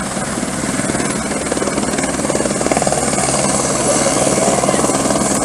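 Firefighting helicopter hovering low over a river to fill its slung water bucket, its rotor beating steadily and rapidly. The sound grows slightly louder as it comes down.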